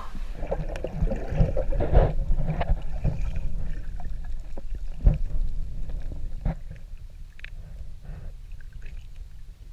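Muffled underwater sound as a snorkeller ducks under and dives: splashing and water movement at first, then a low rumble of water with a few sharp clicks and knocks, quieter in the second half.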